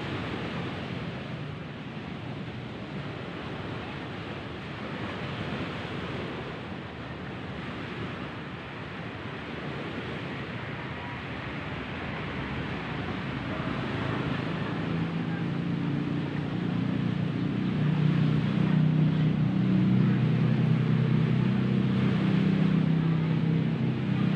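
Steady wind and surf noise on the microphone. About halfway through, a low engine hum comes in and grows louder, loudest near the end.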